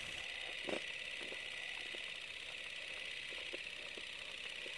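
Steady hiss from an old voice recording, with a few faint clicks and ticks scattered through it.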